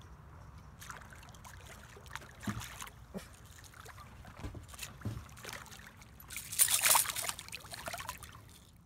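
A hooked fish splashing and thrashing at the water's surface as it is reeled to the boat, with a loud burst of splashing about seven seconds in.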